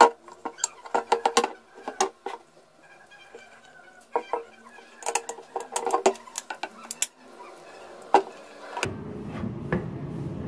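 Plastic pressure-cooker handle and stainless steel lid being fitted together by hand: a run of sharp clicks and knocks in clusters as the parts meet. A low steady rumble sets in near the end.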